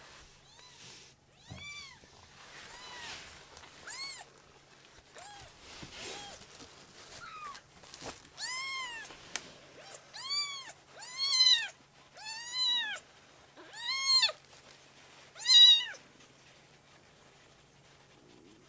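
Baby kitten meowing over and over in short, high calls that rise and fall in pitch. The calls are faint at first and grow louder from about halfway through, about a dozen in all, with the loudest one near the end.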